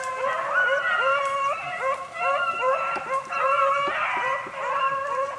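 A pack of beagles baying together, several voices overlapping in drawn-out cries that rise and fall: hounds in full cry on a rabbit's track.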